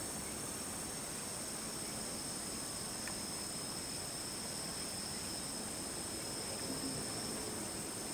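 A steady, high-pitched chorus of insects singing, unbroken over faint background hiss.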